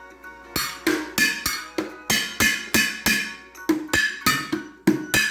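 Kitchen utensils beaten on a pan in a steady rhythm, about three strikes a second, each strike ringing briefly at the same pitch.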